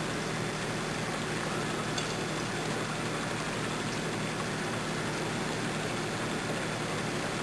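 Steady hiss of a small HHO (oxyhydrogen) torch flame burning, with a low steady hum underneath.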